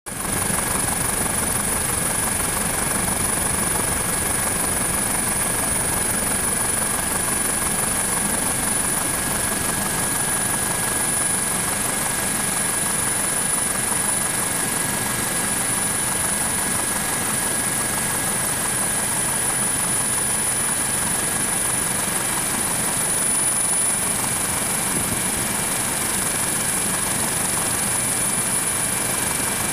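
Helicopter engine and rotor noise, heard from aboard the aircraft: a steady running drone with a constant high whine.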